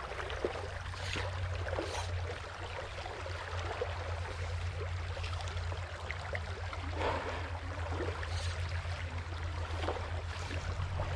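Shallow, gravel-bottomed trout stream running and babbling steadily, an even rush of water with a low rumble underneath.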